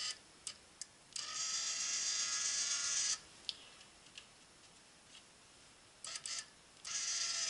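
The belt grinder's linear-actuator tensioner motor runs with a buzzing whine for about two seconds, and again briefly near the end, moving the tension arm. Small clicks of connectors and parts being handled come in between.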